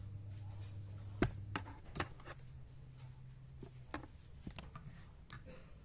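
Scattered light clicks and taps of handling, about half a dozen, over a low steady hum.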